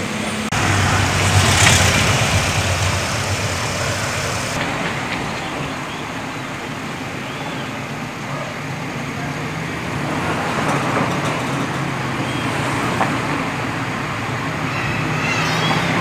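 Electrolux Mini Silent 3 kg washing machine running its wash cycle: a steady low rumble with noise over it, stepping up suddenly about half a second in.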